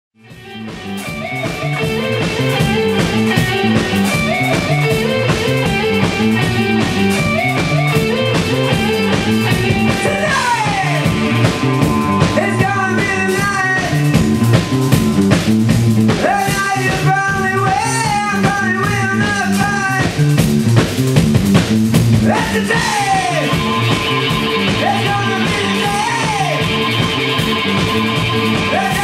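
A live rock band playing: electric guitar, bass guitar and drum kit, with a voice singing over them. The sound fades up over the first second.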